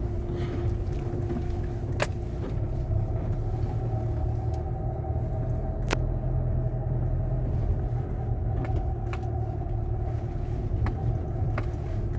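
Renault Kangoo 2 heard from inside the cabin while driving on a rough road: a steady engine and road rumble with a low drone, and a few light sharp clicks now and then. No door creaking is heard: the door hinges have just been repaired.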